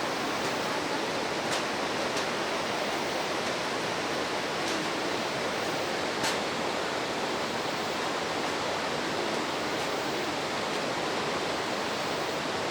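Waterfall: a steady, even rush of falling water, with a few faint ticks.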